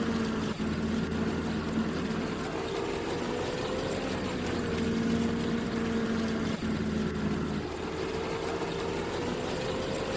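Combine harvester running steadily in the wheat, a continuous droning hum whose pitch drifts slightly up and down.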